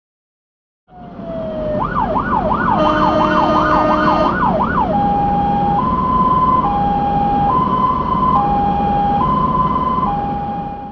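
Fire engine siren on an emergency run, starting about a second in: a fast up-and-down wail for about three seconds, with a brief steady blare over part of it, then switching to a two-tone hi-lo pattern, about one second per tone, over engine and road noise. It cuts off suddenly at the end.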